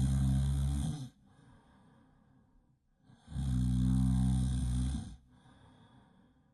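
A person snoring really loud in a slow, even rhythm. One loud snore runs until about a second in, and another runs from about three to five seconds in, with quieter breathing between them.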